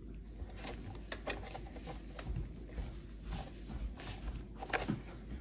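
Faint rustling and scattered light clicks and taps of a capuchin monkey's hands handling fabric and thread at an electric sewing machine's needle plate; the machine is not running.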